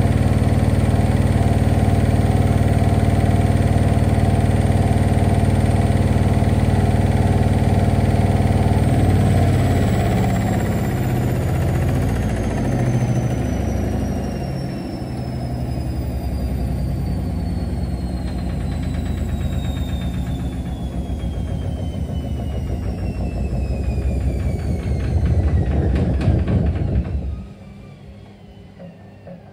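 Gorenje WA50129 S front-loading washing machine in its intermediate spin with an unbalanced load. The drum spins with a steady motor hum and whine, then about nine seconds in the spin winds down, the motor whine falling steadily in pitch as the drum slows with an uneven rumbling. The motor cuts out about three quarters of the way through, leaving a faint hum.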